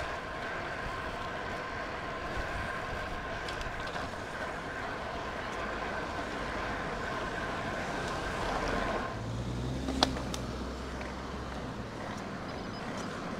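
Road bike riding noise picked up on a handlebar-mounted GoPro: wind on the microphone and tyres on tarmac, with a steady two-note whine that stops about nine seconds in. A vehicle engine hums low for a couple of seconds after that, and one sharp click sounds about ten seconds in.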